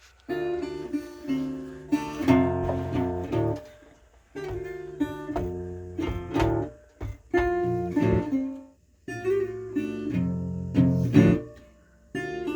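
Background music: a strummed acoustic guitar playing chords, with short pauses between phrases.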